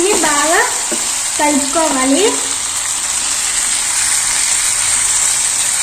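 Masala-coated chicken pieces sizzling steadily in hot oil in a non-stick pan, turned with a wooden spatula as they fry down until fully dry.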